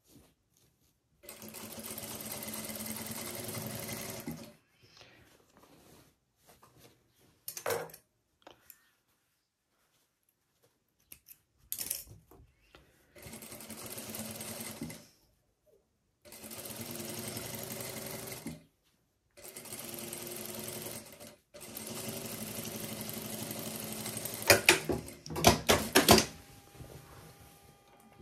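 Industrial straight-stitch sewing machine stitching through fabric and bias binding in five short runs of a few seconds each, stopping and starting between them, with fabric rustling in the pauses. A cluster of sharp clicks near the end is the loudest sound.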